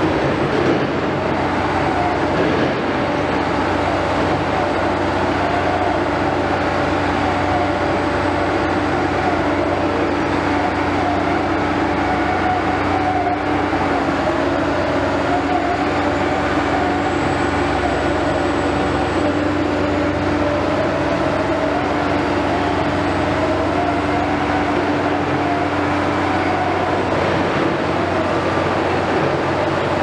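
Heavy construction machinery, crawler crane and piling rigs, running: a loud, continuous engine and hydraulic drone with a steady low hum and no distinct strikes.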